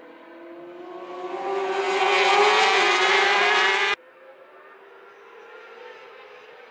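A pack of racing motorcycles at high revs, their engine note rising and growing louder as the bikes come through. About four seconds in the sound cuts off suddenly to a fainter drone of bikes farther off.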